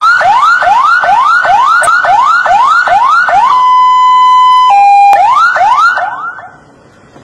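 Ambulance's electronic siren sounding loudly: quick repeated rising sweeps, about two a second, then a steady tone for about a second that steps down to a lower tone, then rising sweeps again before it cuts off about six and a half seconds in.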